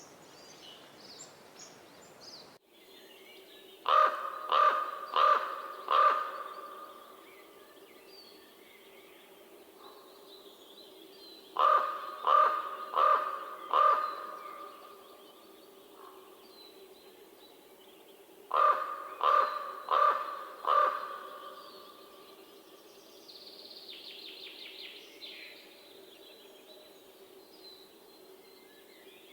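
Common raven calling in three bouts of four croaks each, the croaks under a second apart and the bouts several seconds apart. A faint steady hum runs underneath, and small high chirps come before the first bout.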